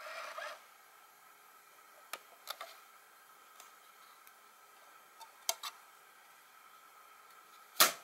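Sony D-160 Discman's lid being opened and closed by hand: small plastic clicks as the lid latch releases, a couple more light clicks, then one sharp snap near the end as the lid is pressed shut.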